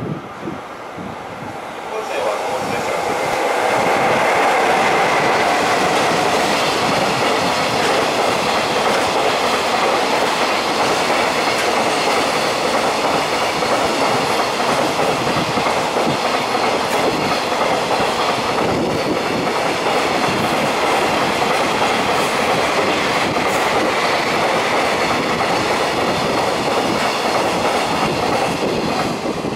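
Long freight train hauled by an EF66 electric locomotive passing close by, its wheels clattering steadily over the rail joints. The sound swells about two seconds in and drops away right at the end.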